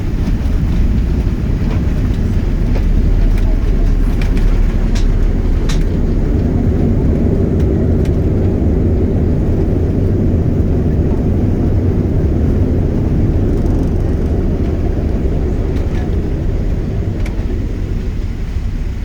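Cabin noise of a Boeing 737 rolling along the runway just after touchdown: a loud, steady low rumble with a few faint rattles, easing slightly near the end.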